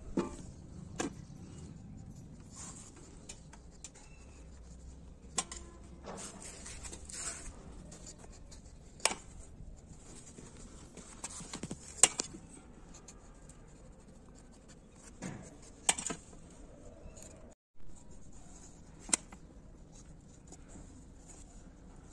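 A small knife slicing the peel off a ripe papaya in soft scrapes, with now and then a sharp click against a steel plate, about seven in all.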